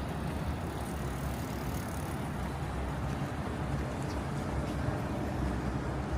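A boat's motor running steadily under way: a low, even rumble with a hiss of wind and water over it.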